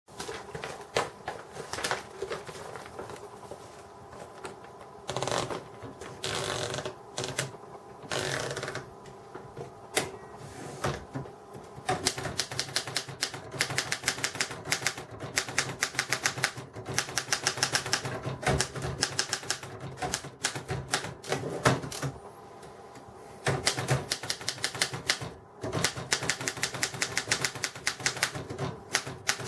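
1959 Erika 10 portable manual typewriter being typed on: scattered keystrokes at first, with a few longer, noisier sounds of about a second each in the first third, then fast runs of key strikes, several a second, broken by a short pause about three-quarters of the way through.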